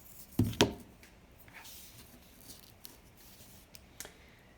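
Two sharp knocks in quick succession about half a second in, then a few faint clicks: small parts being handled and set down on a desk.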